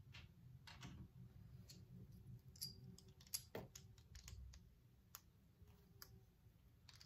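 Faint, irregular clicks of small plastic building bricks being handled and snapped together by hand.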